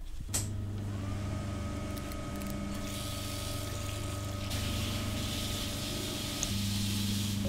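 A sharp click, then a steady low electrical hum with a higher whine that rises and holds about a second in. From about three seconds in, the hiss of a bathroom tap running into a basin joins it.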